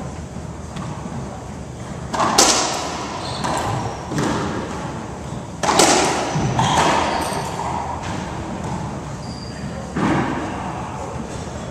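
Racquetball rally: about five sharp smacks of racquets striking the ball and the ball hitting the court walls, each ringing on in the enclosed court's echo.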